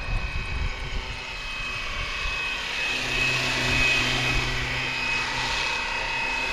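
Electric RC helicopter (Flywing BO 105, 450 size) running in flight: a steady high motor whine over the noise of the spinning rotor.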